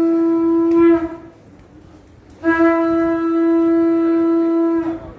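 Conch shell (shankha) blown in two steady, loud blasts: a short one of about a second, then a longer one of about two and a half seconds that sags slightly in pitch as it ends. This is the call sounded to open the temple worship.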